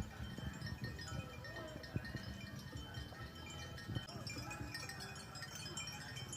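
Several cowbells on grazing cattle clanking irregularly, their ringing tones of different pitches overlapping, with a few sharp knocks.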